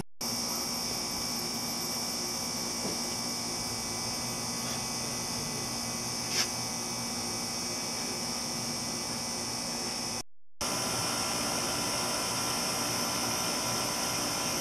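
Steady background hiss with a low hum under it, broken by one short tick about six seconds in and a brief dropout near ten seconds.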